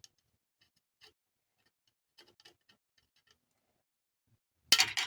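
Faint scattered clicks and taps of small 3D-printed plastic wagon parts being handled on a workbench, then a sudden loud sharp click followed by a quick clatter of small clicks near the end.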